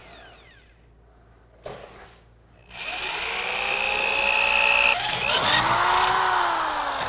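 Power drill running a small, sharp twist bit through a heavy-gauge steel bumper, cutting a pilot hole. It starts about two and a half seconds in as a steady whine, and its pitch dips and climbs back a couple of times while the bit cuts.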